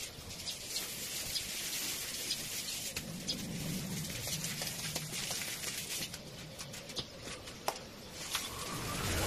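Water from a garden hose spraying and pattering onto plants and wet floor tiles, a steady hiss with many small drips and splashes.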